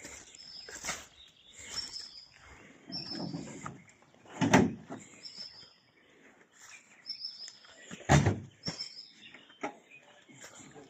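Small birds chirping in short repeated high calls, with two loud thumps, about four and eight seconds in.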